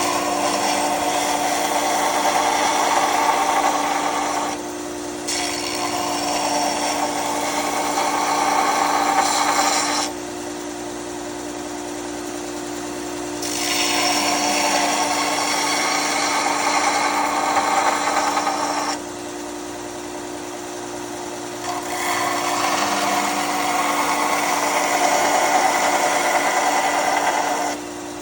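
Bauer belt grinder running with a steady motor hum. Steel is pressed against the belt in four passes of several seconds each, each pass adding a rough grinding hiss over the hum: a bevel being ground on a knife blade.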